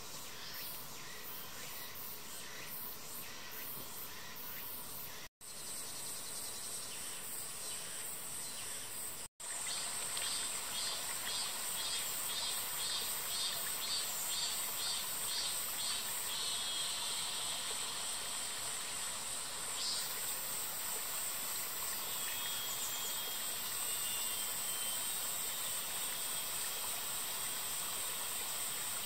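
A steady, high-pitched insect chorus in a summer forest. Between about ten and sixteen seconds in, a pulsing insect call repeats about twice a second. The sound cuts out briefly twice, at about five and nine seconds in, and is louder after the second break.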